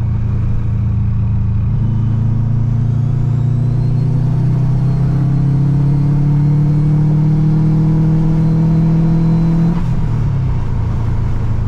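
Turbocharged Subaru WRX flat-four accelerating hard, heard from inside the cabin, the engine note rising steadily for about eight seconds with a faint high whistle under boost. The driver takes the whistle for boost leaking past the too-soft spring of the new Turbosmart blow-off valve. Near the end the throttle closes and the revs drop with a brief release from the valve.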